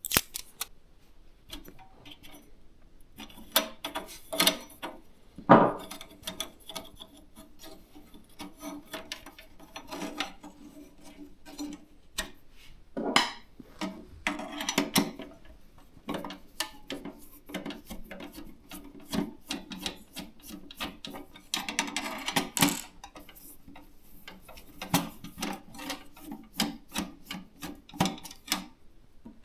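Hands handling and fitting PC hardware: irregular clicks, taps and short rubbing and scraping of parts, with a sharper knock about five seconds in and a longer rub a little past the middle.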